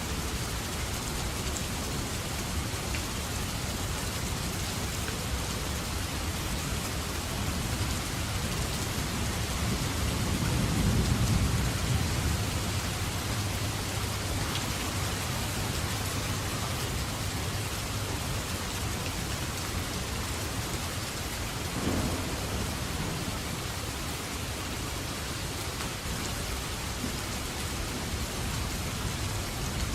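Steady rain falling, with a low rumble of thunder that swells and fades about a third of the way through, and a shorter low rumble about two-thirds of the way through.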